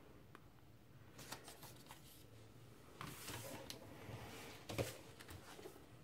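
Faint rustling and light taps of paper and card being handled: a small printed download card and a large printed lyric insert. The longest rustle comes about three seconds in, with a short sharp tap just before five seconds.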